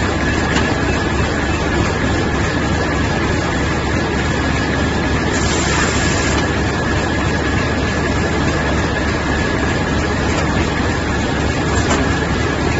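Core vegetable bag-on-roll machine running steadily: a constant mechanical hum with a thin, steady high whine. A brief hiss comes about five and a half seconds in.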